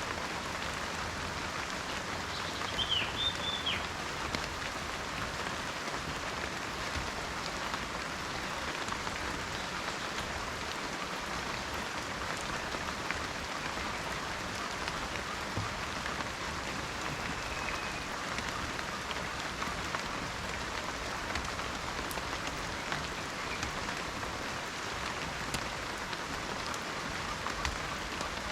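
Steady rain falling in a forest, an even hiss of drops. A bird gives a brief chirp about three seconds in, and a faint thin whistle follows a little past the middle.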